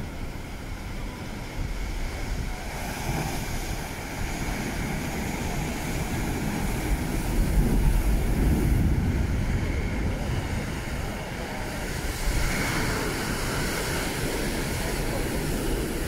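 Sea waves breaking and washing over a rocky shore, a continuous rushing surf with a bigger wave surging about halfway through. Wind rumbles on the microphone underneath.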